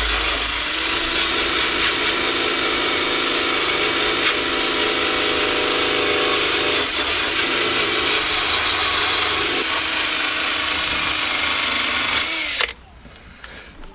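Power drill running steadily as it cleans rust and paint off the steel inner wing panel of an old car, a whine over a gritty scouring hiss. It stops suddenly near the end.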